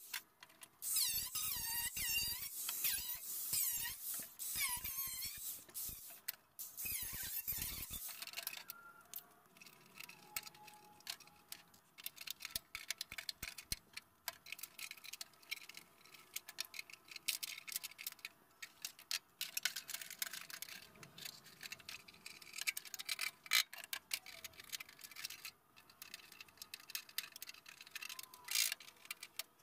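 Cordless angle grinder with a cut-off wheel cutting through rusted sheet-steel floor panel, its high whine wavering in pitch as it loads and unloads, stopping about eight seconds in. Then scattered light metallic clicks and clinks of hand tools and cut metal being handled.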